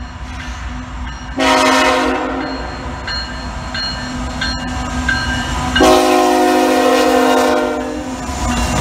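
CN freight diesel locomotive sounding its air horn for a grade crossing: two chord blasts, the second longer and starting about four seconds after the first, over the low rumble of the locomotive engines as the train comes up and passes.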